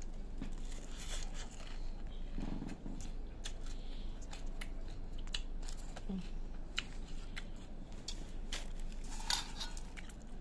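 Irregular crisp crunches and crackles of puffed rice (muri), being chewed and scooped by hand in a steel bowl.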